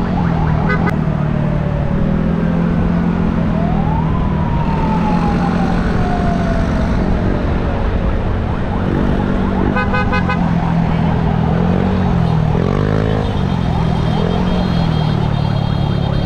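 Motorcycle engine running steadily at road speed, with wind noise on the microphone. A siren wails once, rising about four seconds in and then falling slowly.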